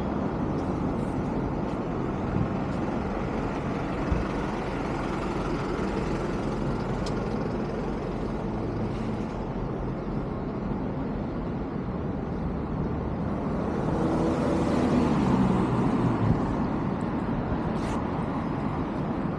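Street traffic noise with a steady hum of road vehicles; one vehicle passes about three quarters of the way through, its engine sound swelling and falling in pitch.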